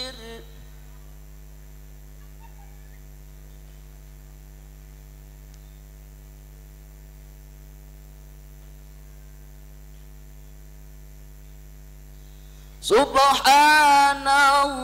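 Steady electrical mains hum through the sound system. About 13 seconds in, a man's amplified voice comes in loud, chanting the divine names in a drawn-out, ornamented melody into a microphone.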